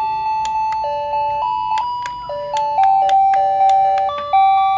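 Battery-powered toy dressing table's built-in music chip playing a simple electronic tune: one line of plain beeping notes, changing every third to half second, each note starting sharply and fading.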